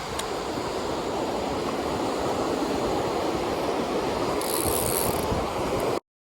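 Rough ocean surf crashing steadily, with wind buffeting the microphone. The sound cuts off abruptly near the end.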